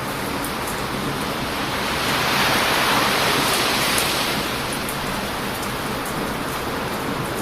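Heavy ocean surf crashing on a beach as a steady roar, with one wave breaking louder about two seconds in and then fading. A few faint pops from a crackling wood fire sit on top.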